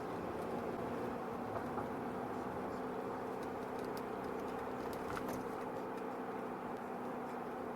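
Car driving slowly on a snow- and ice-covered street, heard from inside the cabin: a steady engine hum under tyre and road noise, with a few faint clicks and crunches about four to five seconds in.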